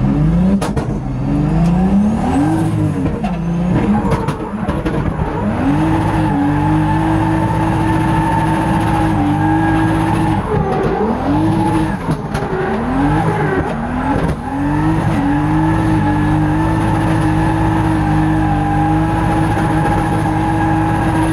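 Drift car engine revving hard: the pitch climbs and dips several times and is held at high revs for long stretches in between.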